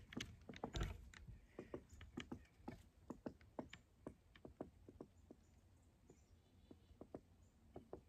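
Woodpecker pecking into the wood of a dead standing tree overhead: faint, irregular taps, several a second, thinning out in the second half.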